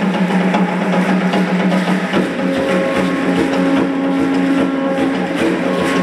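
Two conch-shell horns held on steady low notes, the second, higher one joining about two seconds in, over a dense rattling of the dancers' ankle rattles.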